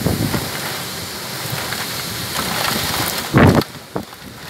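Heavy rain and strong wind of a violent thunderstorm, a dense steady rushing hiss. About three and a half seconds in comes one brief, very loud blast, after which the sound drops quieter.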